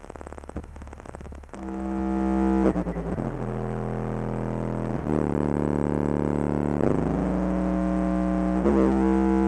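Music with deep bass played through a box of four 8-inch subwoofers. A quiet low hum with a few clicks gives way, about a second and a half in, to buzzy sustained notes that change pitch every second or two over a steady deep bass tone.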